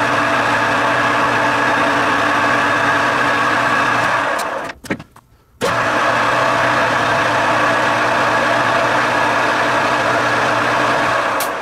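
Metal lathe running steadily with a twist drill cutting through the part. The sound cuts off abruptly for about a second near the middle, then starts again at the same level.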